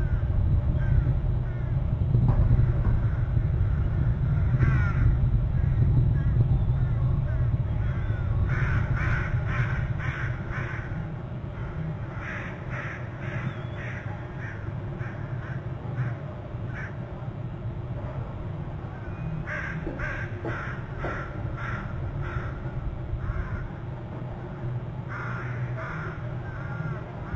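Harsh bird calls in four runs of quick repeated notes, a few a second, over a steady low rumble.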